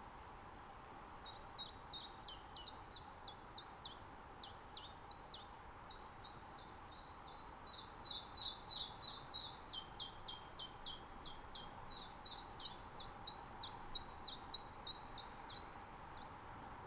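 Common chiffchaff singing: a long run of short, clear notes, about three a second, stepping up and down in pitch. It starts about a second in and is loudest about halfway through.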